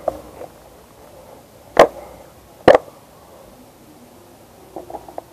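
Two sharp knocks, a little under a second apart, over a quiet background, with a few faint ticks near the end.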